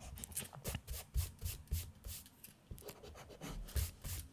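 Pencil eraser rubbing on paper in quick back-and-forth strokes, erasing pencil lettering, with a short pause in the middle.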